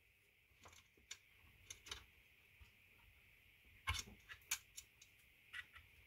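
Faint clicks and light knocks of a small plastic balance-lead plug being worked in the balance socket of a hobby balance charger, with gloved hands handling the charger case. The clicks come scattered, the loudest few about four seconds in.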